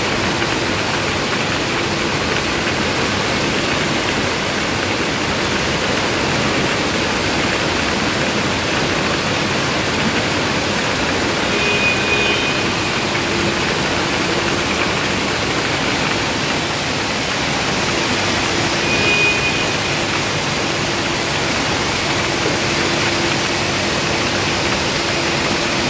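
Steady, dense rush of noise from cans sliding and jostling on a running slat-chain buffer conveyor, mixed with the hum of the can line's machinery. A faint high whine comes in briefly twice.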